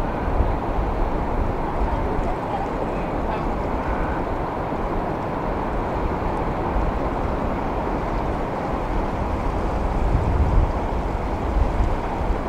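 Ocean surf washing steadily around the pier, a continuous rushing noise with a low rumble that swells briefly about ten seconds in.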